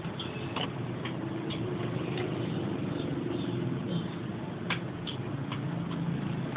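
A handful of light, irregularly spaced clicks and taps over a steady low background hum.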